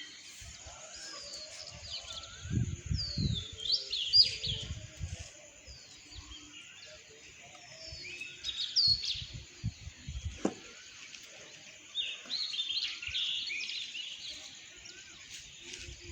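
Sparrows chirping, short sliding chirps coming in bursts with several birds overlapping, along with occasional low rumbling bumps.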